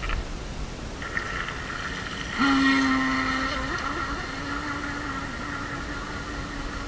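Brushless electric motor and propeller of a Skytech H101 RC speedboat whining as the boat speeds away across the water. A faint whine starts about a second in, jumps suddenly louder about two and a half seconds in, then fades slowly as the boat moves off.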